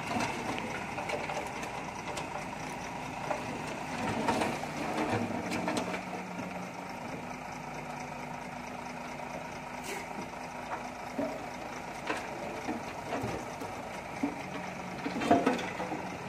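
A 12-wheel tipper truck's engine running steadily as the raised bed dumps soil and rocks, with a few sharp knocks as the load comes down.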